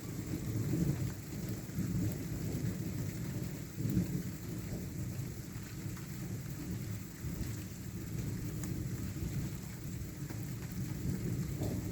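Rain falling steadily under a continuous low rumble of thunder, with a brief louder swell about four seconds in.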